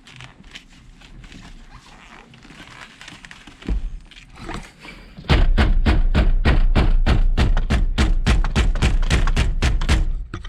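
A rapid run of loud, heavy thuds, about six a second for around five seconds after a couple of single knocks: the stock steering wheel of an EK Honda Civic being struck hard to knock it loose from the steering column without a wheel puller.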